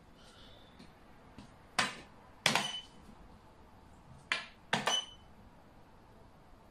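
Xiangqi (Chinese chess) pieces clacked down on the board as a red chariot and then a black chariot are moved: four sharp knocks in two pairs, the pairs about two seconds apart, some with a short ring.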